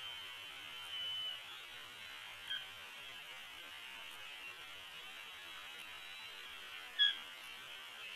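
Steady hiss with brief, high-pitched bald eagle calls, the loudest and sharpest about seven seconds in.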